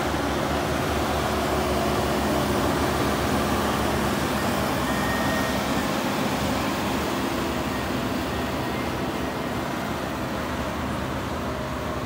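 JCB 3DX backhoe loader's diesel engine running steadily while the machine works its front bucket through loose soil, levelling it. The engine note is a little louder early on and eases slightly near the end.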